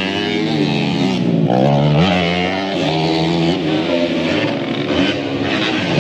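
Motocross dirt bike engines revving hard, their pitch rising and falling with throttle and gear changes as the bikes run through the course.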